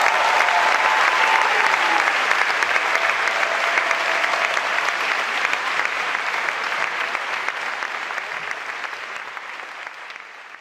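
Audience applauding in a hall, dense clapping that slowly dies away over the last few seconds.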